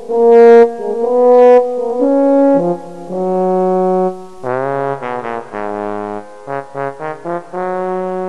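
Intro music: long held notes through the first half, then a quicker run of short notes, ending on a held note.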